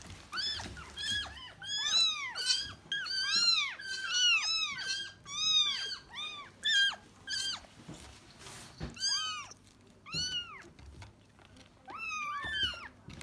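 A cat meowing over and over: short, high-pitched mews that rise and fall, coming thick and fast at first, then in a few shorter groups after brief pauses.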